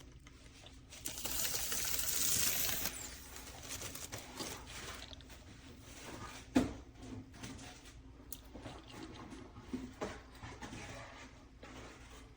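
Faint handling noises: a rustling hiss about a second in, then scattered light clicks and one sharper knock near the middle.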